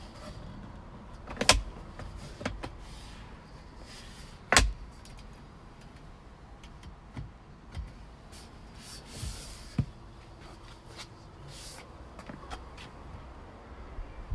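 A few knocks and clicks with faint rustling between them, the loudest about one and a half and four and a half seconds in, from handling in and around a Tesla Model 3's cabin with the door open.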